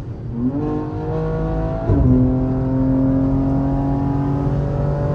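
BMW M3 G80's twin-turbo inline-six under hard acceleration at very high speed, heard from inside the cabin. Revs climb, there is an upshift about two seconds in, then revs climb slowly again under load.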